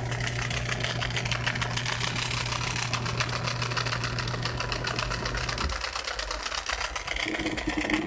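Defective drain pump of a Samsung top-load washing machine running during the spin cycle: a fast, even rattling clatter over a low hum, and the hum cuts out about six seconds in. The rattle is the sign of a dead pump, which should only hum, almost inaudibly.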